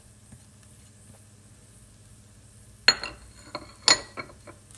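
Ceramic plate and utensil clinking: after a quiet stretch of about three seconds, a quick run of six or so sharp clinks and knocks, the loudest near the end.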